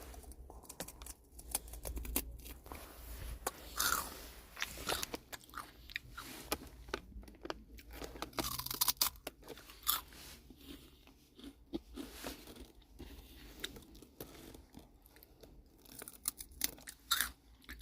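Crunchy nogari chips (dried pollack snack) being bitten and chewed, with irregular crisp crunches throughout.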